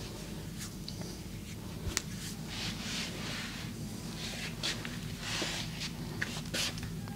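Massage hands rubbing and pressing over skin and cloth: soft swishes that swell and fade, with a few short sharp clicks, over a steady low hum.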